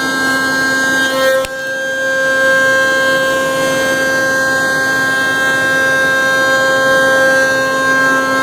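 CNC router spindle running with a steady high whine while milling plywood, with a brief dip in level about a second and a half in.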